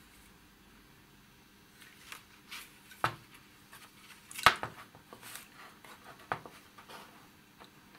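Handling noise from an opened vintage aircraft fatigue consumption indicator: clicks and taps of its metal chassis and small parts turning in the hands, starting after a quiet second or so. The loudest sharp click comes about four and a half seconds in.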